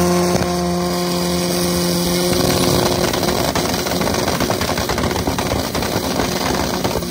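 A drag-racing Chevette's Volkswagen AP four-cylinder engine held at high revs on the start line. It holds a steady note for about three seconds, then breaks into a rapid, rough crackle.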